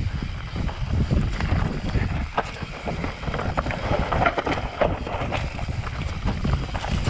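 Mountain bike descending a rocky dirt singletrack: wind buffeting the microphone over the noise of tyres on dirt and stones, with frequent short knocks and rattles as the bike goes over bumps and rocks.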